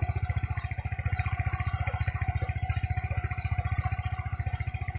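Yamaha Mio Sporty scooter's single-cylinder engine idling, a steady fast even putter.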